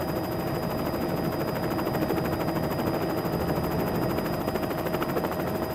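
Helicopter running steadily, its rotor blades beating in a fast, even chop.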